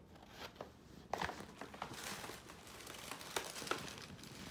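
Brown paper gift bag crinkling and rustling as hands dig into it to unpack a present. It starts about a second in and goes on as an irregular crackle of small clicks.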